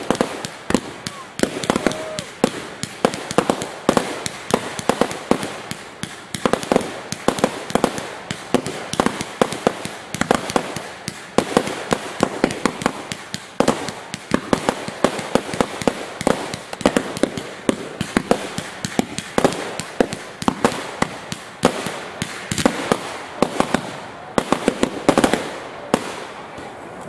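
Fireworks finale: a continuous barrage of aerial shell bursts and salute reports, many sharp bangs a second, thinning out near the end.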